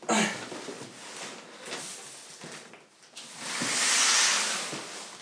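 Large cardboard monitor box being handled and stood on a table: cardboard rubbing and scraping, with a louder swish from about three seconds in.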